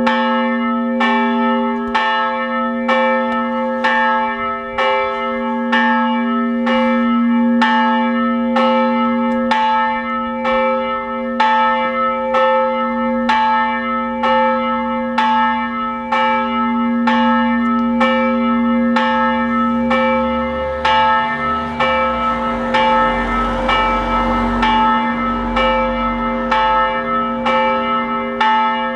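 Large church bell swinging and ringing for the noon bell, struck about once a second, with a steady humming ring carrying between strokes.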